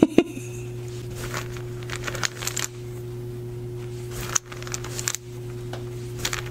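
Small rune pieces being handled and laid out on a table: scattered clicks and light rustling, the sharpest click right at the start, over a steady low hum.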